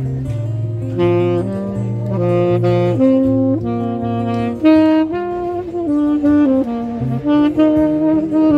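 Saxophone playing a melody of held notes over an accompaniment with sustained low bass notes.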